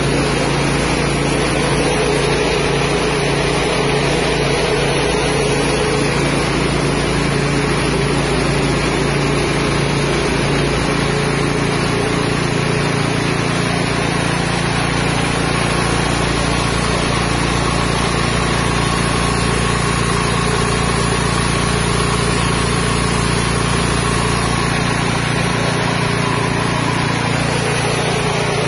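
Mini rice milling machine driven by a small 6.5 hp engine, running steadily under load as it mills paddy into white rice. The engine's hum and the machine's whirring rush hold an even level throughout.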